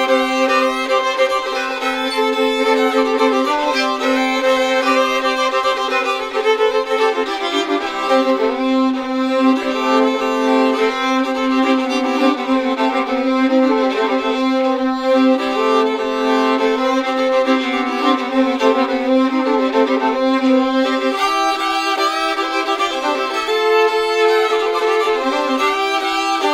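Two fiddles playing an old-time fiddle tune together, bowed with a held low drone note under the melody. A faint regular low tap keeps the beat underneath.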